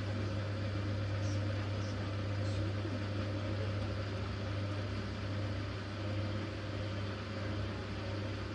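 Siemens Siwamat iQ 716 washing machine running: a steady low hum with a constant whirring noise over it.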